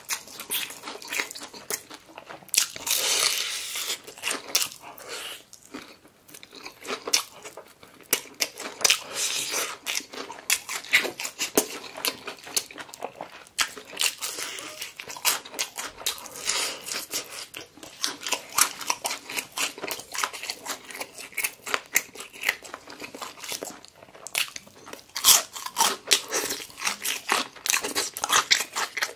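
Close-miked biting and chewing of crispy fried chicken: the fried crust crackles and crunches with each bite and chew, in quick, dense crackles that are loudest about three seconds in and again near the end.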